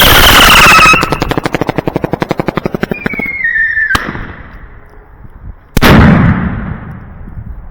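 Consumer fireworks going off. A loud blast with a whistle falling in pitch is followed by a rapid run of crackling pops, about ten a second. A second falling whistle ends in a sharp crack, and a loud bang comes about six seconds in and rings out.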